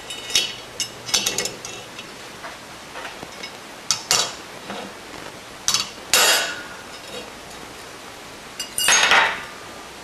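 Metal clinks and scrapes as a brass clock gear and a steel punch are handled against a steel box-section rest: several sharp clinks, then two longer scraping sounds about six and nine seconds in.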